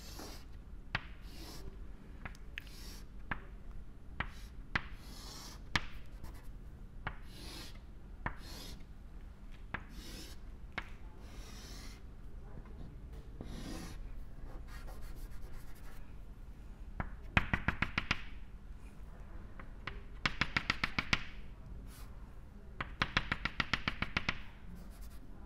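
Chalk on a blackboard: scattered single taps and scratches as straight lines are drawn, then three quick runs of rapid chalk taps in the second half as dashed lines are dotted in. A low steady hum lies underneath.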